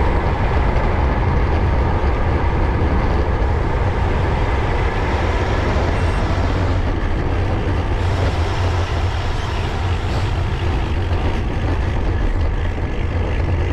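Wind buffeting the microphone of a bike-mounted action camera, with tyre and road noise from a road bike coasting downhill, as a steady low rumble that eases off a little as the bike slows.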